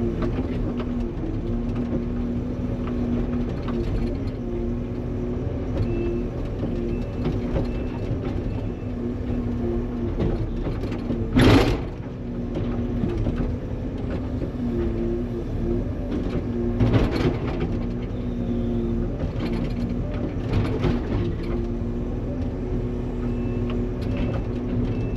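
Engine of a log-handling machine running steadily under load as logs are grappled and moved, with a loud knock about eleven and a half seconds in and a few lighter knocks later, as logs strike one another.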